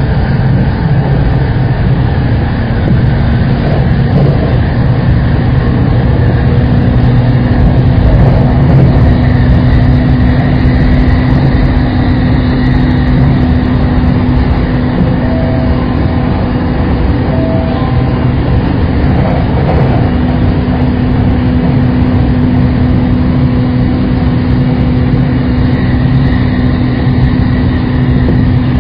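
Saikyo Line commuter rapid electric train running at steady speed: a continuous low rumble with a steady hum laid over it.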